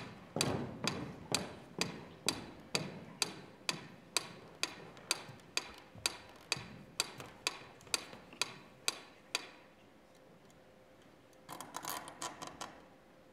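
Footsteps on a wooden stage floor, sharp clicks about two to three a second, stopping about nine seconds in. Near the end comes a short flurry of light knocks as an object is set down on the floor among shoes.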